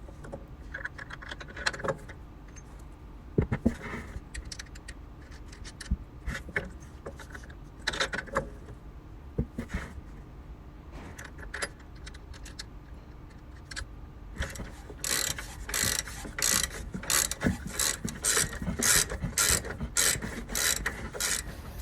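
Socket ratchet clicking as the bolts on a hospital bed's brake-pedal bracket are tightened, with scattered knocks of metal and plastic parts being handled. In the last third, a steady run of ratchet strokes at about two a second.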